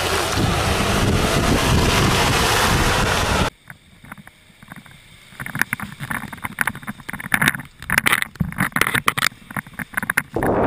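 Loud wind rush on the microphone, then a sudden drop to a muffled low rumble. About two seconds later comes a rapid, irregular spatter of sharp knocks as a Jeep Grand Cherokee's spinning tyre throws up mud clods.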